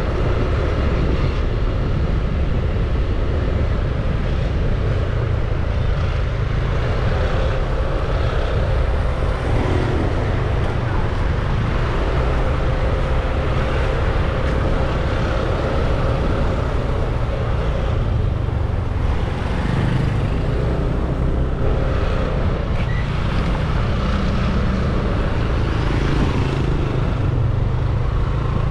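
Riding a scooter through town traffic: the scooter's engine running and passing vehicles, under a steady low rumble of wind on the microphone.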